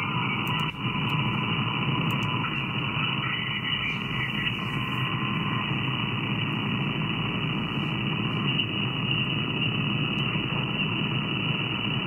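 Steady hiss of band noise from an SDRplay RSP2 software-defined radio receiver as it is tuned, with no station coming through. A faint steady tone sounds briefly about five seconds in, and a few light clicks come in the first two seconds.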